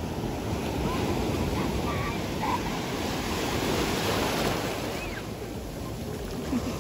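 Ocean waves breaking and surf washing through the shallows, a steady rush that swells louder in the middle and eases slightly toward the end.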